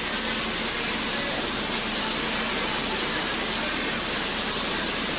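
A steady, even hiss with no distinct sounds over it.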